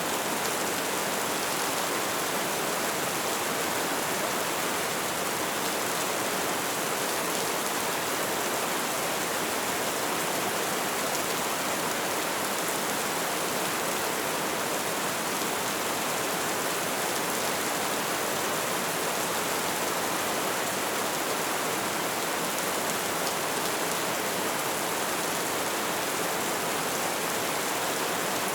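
Steady rain falling: an even, dense hiss, strongest in the upper range, with no single drops or thunder standing out.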